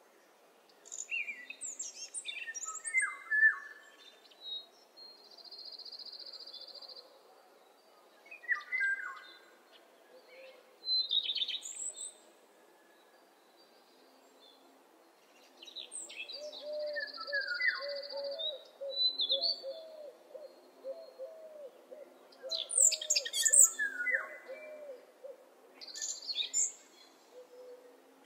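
Morning birdsong: several songbirds chirping and trilling in bouts, with short buzzy held notes, pausing briefly in the middle. A low repeated call runs under the second half.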